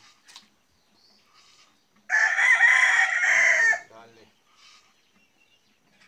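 A rooster crowing once, a single loud call of under two seconds that starts about two seconds in and trails off at the end.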